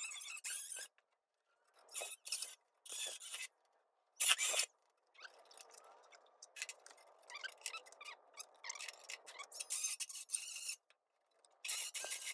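Sheet-metal panel scraping and squeaking in a string of short, separate bursts as it is worked into place against the fender.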